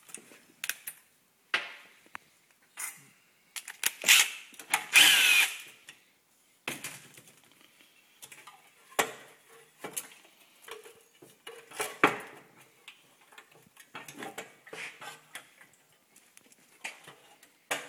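Hand tools and metal engine parts clinking and knocking at irregular moments while bolts and the carburetor are worked off a 5 hp Briggs & Stratton engine. A louder rasping burst comes about four to five seconds in.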